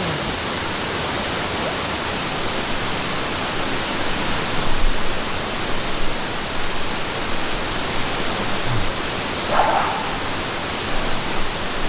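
Steady rushing of a stream, an even unbroken hiss with a strong high-pitched band on top.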